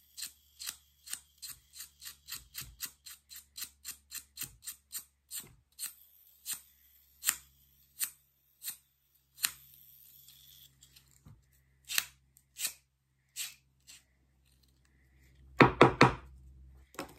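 Quick sharp clicking taps as grip tape is worked onto a fingerboard deck at a table, about four a second at first, then slowing and spacing out. Near the end comes a brief cluster of louder knocks.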